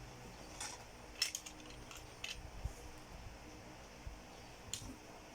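Faint clicks and rustles of small plastic toy figurines and their packaging being handled, a handful of short taps spread over a few seconds.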